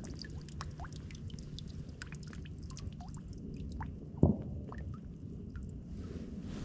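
Water dripping and trickling in scattered small drips over a steady low rumble, with one sharp knock about four seconds in.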